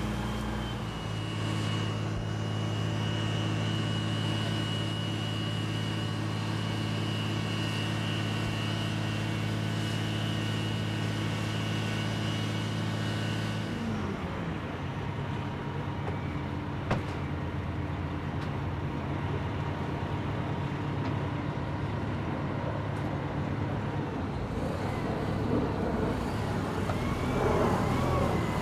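Heavy engine of a Kirow Slag Taurus slag pot carrier running steadily, with a high whine over it. About halfway the sound changes abruptly to a lower steady engine note, with a single sharp click a few seconds later, and it grows louder and rougher near the end.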